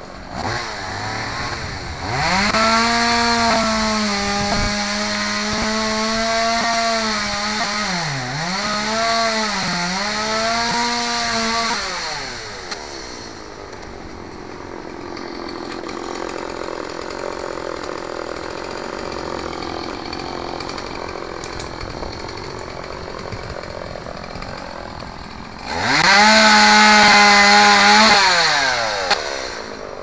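Petrol chainsaw revved to full throttle for about ten seconds, dipping twice, then dropping back to a lower running note. Near the end it revs up hard again for a few seconds and winds down.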